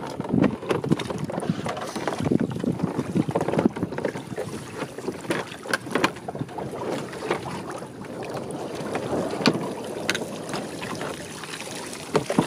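Seawater splashing and running off a wire-mesh fish pot as it is hauled up over the side of a small boat, with scattered knocks and clatters and wind buffeting the microphone.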